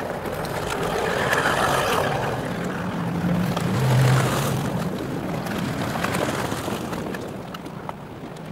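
Personal watercraft (jet ski) passing close by, its engine and rushing spray growing louder to a peak about four seconds in, then fading away.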